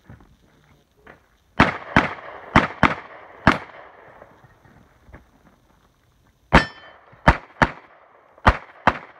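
Glock 19 9mm pistol fired ten times in two strings of five, mostly quick pairs, with a pause of about three seconds between the strings.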